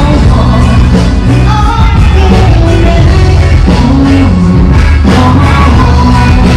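Loud pop music with a singing voice over a steady bass line.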